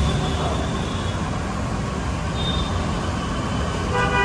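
Jalebi batter frying in a wide kadhai of hot oil: a steady sizzle over a low rumble.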